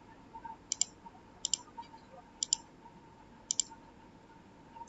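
Computer mouse button clicking: four pairs of quick, sharp clicks, about one pair a second.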